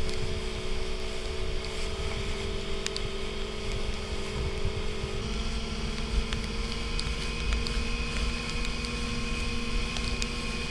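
Motorboat engine running at a steady speed, its pitch stepping up slightly about halfway through, with wind rumbling on the microphone.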